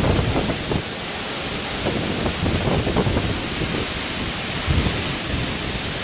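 Storm wind and heavy rain: a steady hiss of rain and wind, with gusts buffeting the microphone in irregular low bursts.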